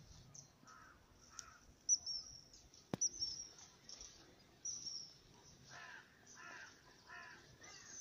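Dawn birdsong: small birds chirping and twittering throughout, with a run of harsh, caw-like calls about six to seven and a half seconds in. A single sharp click comes about three seconds in.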